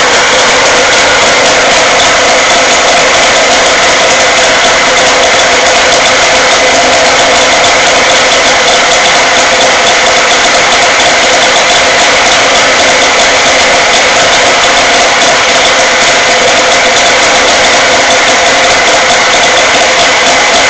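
Suzuki 40 hp outboard motor running steadily at one even speed, on a test run with a newly fitted CDI ignition unit.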